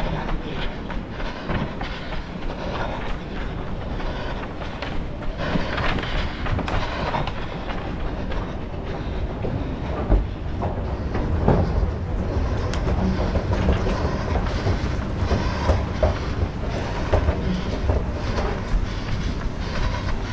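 A runner's footsteps, a steady rhythm of thuds, heard through a head-mounted camera that jolts with each stride.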